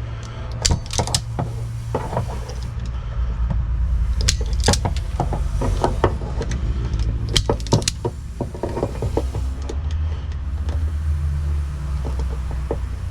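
Scattered sharp clicks and snips of hand tools working on corroded car wiring, over a steady low rumble.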